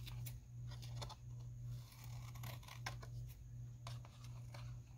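Scissors snipping the edge of a sheet of white cardstock: a few faint, sparse snips, over a steady low hum.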